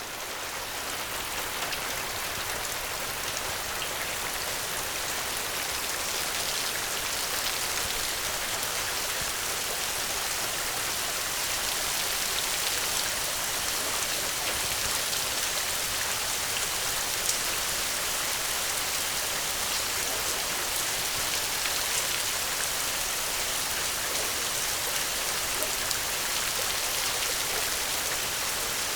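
Steady rainstorm, an even dense hiss of rain, swelling in over the first couple of seconds and then holding steady.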